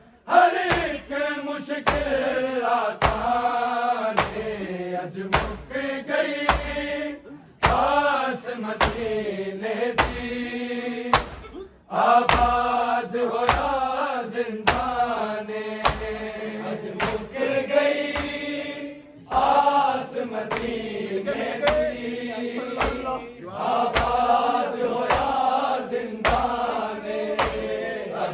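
A group of men chanting a Punjabi noha in unison, unaccompanied. A steady beat of chest-beating (matam) strikes runs under the chant at about one and a half beats a second.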